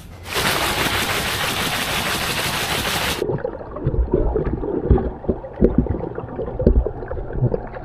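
Loud splashing, churning pool water for about three seconds that suddenly turns to the muffled sound of being underwater. Bubbling, gurgling and irregular low thumps of a swimmer's strokes follow.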